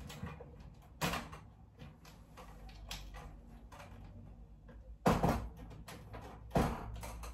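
Hinged wooden plantation shutters being folded shut over a window: several sharp wooden knocks and clatters of the panels and louvres, the loudest cluster about five seconds in.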